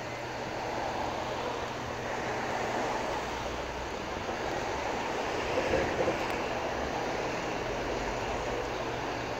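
Steady outdoor background noise of street traffic with a faint low hum, and a couple of brief louder sounds about six seconds in.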